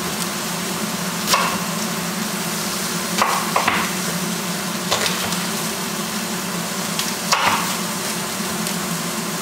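Pork loin sizzling steadily as it browns in a metal pan, with a handful of sharp knocks of a chef's knife on a wooden cutting board as an onion is cut.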